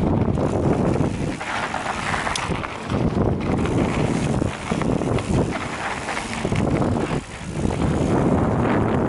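Mountain bike riding fast down a dirt and rocky trail: wind rushing over the microphone over the rumble and rattle of tyres and frame on the rough ground, the noise swelling and dipping briefly several times.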